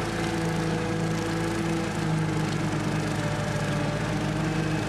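Kubota compact tractor's diesel engine running steadily under load as it mows through tall brush and grass.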